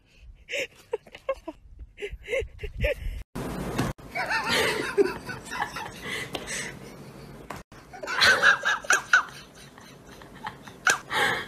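A person's voice, laughing, in short bouts.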